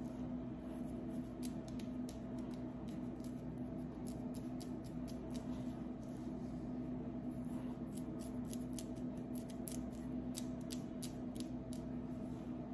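Fingernails scratching and picking at a dry, dandruff-flaked scalp through the hair, making irregular small crackling scratches that come thicker in the second half. A steady low hum runs underneath.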